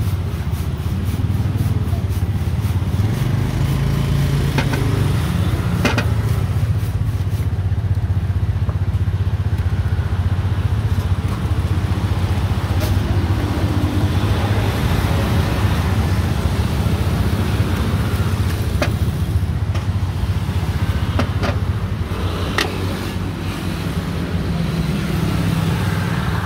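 Steady rumble of street traffic, motorcycles and cars passing, with a few short sharp clicks scattered through it.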